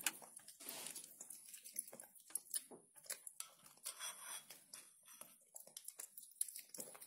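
Faint, irregular clicks and scrapes of a metal spoon against a bowl, mixed with the small chewing sounds of a macaque eating soft, wet food.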